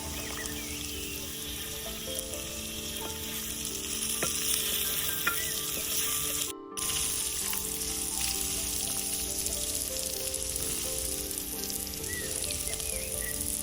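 Food sizzling as it fries in hot oil in a pan, with stirring. The sizzle is steady and breaks off briefly about six and a half seconds in.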